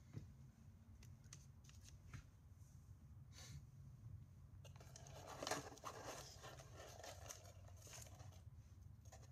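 Faint handling sounds on a paper-covered workbench: a few light clicks as small items are set down, and a short rustle about five seconds in, over a low steady hum.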